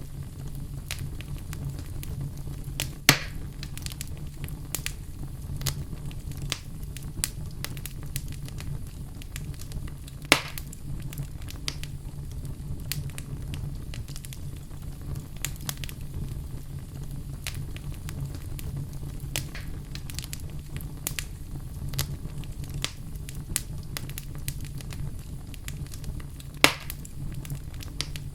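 Wood fire in a fireplace crackling steadily over a low rumble, with many small crackles and three louder pops: one a few seconds in, one about a third of the way through, and one near the end.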